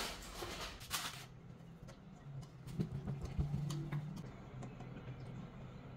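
Aluminium foil crinkling and rustling as it is pressed into a metal baking pan, loudest in the first second or so, then a few faint handling clicks.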